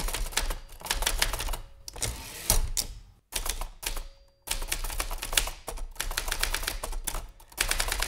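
Typewriter typing: keys struck in rapid runs of sharp mechanical clacks, broken by two brief silences a little after three and four seconds in.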